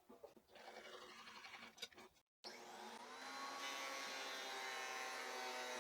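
A planer's electric motor starts about halfway through and runs up to speed, then holds a steady hum made of many tones. Before it there are only a few faint clicks.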